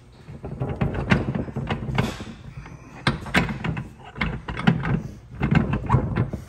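Irregular clicks and knocks of metal transfer case parts being handled and worked into place, one part being forced on by hand.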